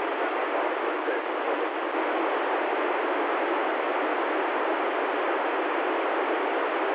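Steady FM receiver hiss from an ICOM ID-51 handheld tuned to the ISS 2 m downlink: open-squelch static with no voice, the sign that no station is transmitting on the channel at this moment.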